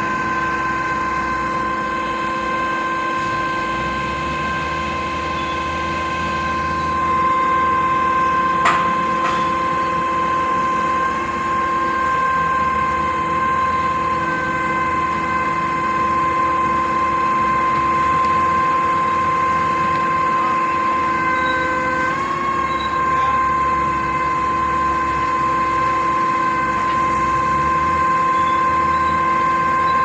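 KCP 52 m truck-mounted concrete pump running as its boom unfolds: engine and hydraulics with a steady high whine. A single sharp click comes about nine seconds in, and the whine wavers briefly about 22 seconds in.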